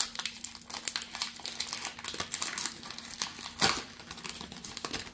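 Foil Pokémon card booster pack crinkling as it is handled and torn open, with a string of short crackles and one louder crackle about two thirds of the way through.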